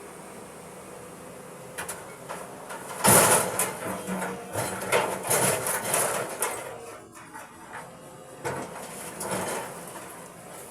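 Boulders tipped from an excavator bucket crash into a Nissan dump truck's steel bed: a loud crash about three seconds in, then a few seconds of rocks clattering and scraping, and a smaller crash with more clatter near the end. Before the first crash an engine runs steadily.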